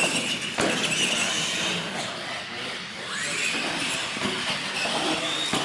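Electric R/C monster truck motors whining and rising in pitch as the trucks accelerate, twice over. There is a sharp knock about half a second in, as a truck comes off a wooden jump ramp.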